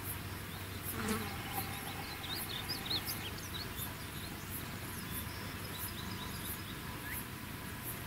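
Insects calling in high, regular pulses about twice a second, with a few quick bird chirps a second or two in.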